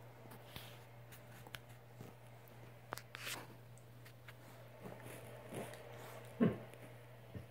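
A kitten nuzzling and mouthing at a dog's belly on a bed: faint rustling of bedding and small clicks over a steady low hum. A short, louder low sound comes about six seconds in, as the dog shifts.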